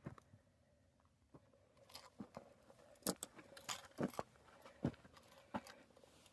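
A hiker's footsteps crunching on loose dirt and gravel while climbing, uneven steps about one or two a second.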